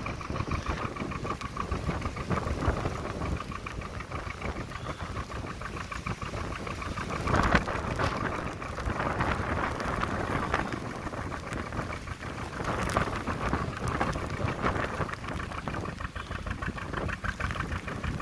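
Gusty wind buffeting the microphone and rain falling, with the steady beat of a narrowboat's engine running under way beneath; one strong gust about halfway through is the loudest moment.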